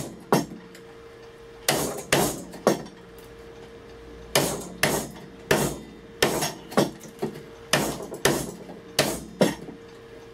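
Hammer striking a chisel to chop a mortise in hardwood, about a dozen sharp blows in runs of two or three with short pauses between.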